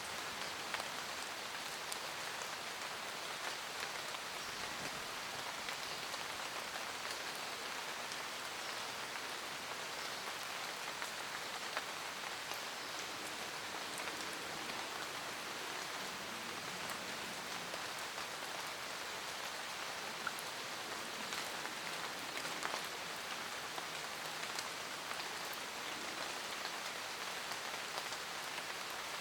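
Light rain falling on forest leaves: a steady patter with many small drop ticks scattered through it.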